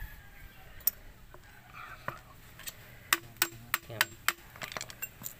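A series of sharp clicks and taps, most of them bunched about three to four seconds in at roughly three a second, as a car air-conditioning compressor's clutch pulley is turned and handled by hand. Faint low voices are heard underneath.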